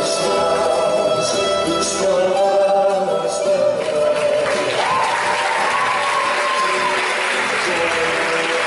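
Portuguese academic tuna, a student music group, performing a song with voices and instruments; about halfway through a long note is held while applause rises.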